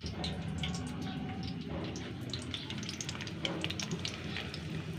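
Besan-battered spinach leaves frying in oil in an aluminium karahi on low heat: a steady sizzle dotted with many small crackles and pops.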